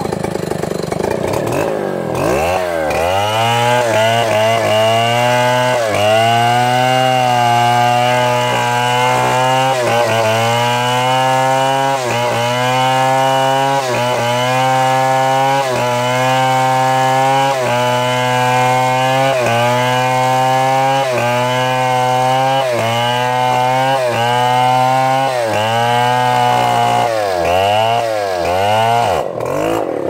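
Stihl two-stroke chainsaw revving up about two seconds in and held at high speed while it cuts through a felled palm trunk, its pitch dipping briefly every second or two. Near the end the engine is blipped several times in quick succession.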